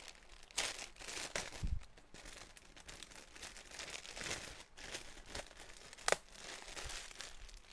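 Plastic-wrapped clothes crinkling and rustling as they are handled, in irregular bursts, with one sharp click about six seconds in.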